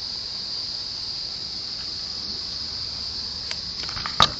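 Steady, high-pitched insect chorus, with a single sharp click about four seconds in.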